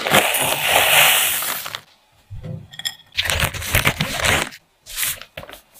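Oreo cookie crumbs pour into a glass bowl for almost two seconds, a dry rattling hiss. A brief ringing clink follows. Then scissors snip open a plastic bag, which crinkles as it is handled.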